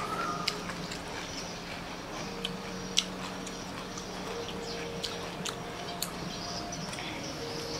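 A person chewing a mouthful of rice noodles and fresh vegetables, with several sharp clinks of a metal spoon against a stainless-steel tray as he scoops up more; the loudest clink is about three seconds in. A faint steady hum runs underneath.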